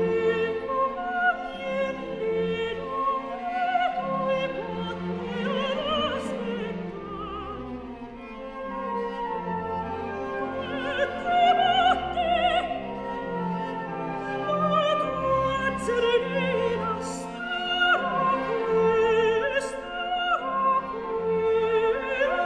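Opera music: a singing voice with wide vibrato over an orchestra with bowed strings.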